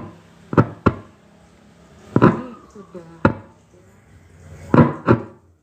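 Mic test through an active speaker's amplifier: about six short, sharp clicks or knocks with a brief ring after each, over a steady low hum from the amplifier.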